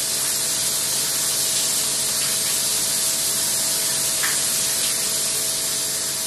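Shower running: a steady hiss of water spraying.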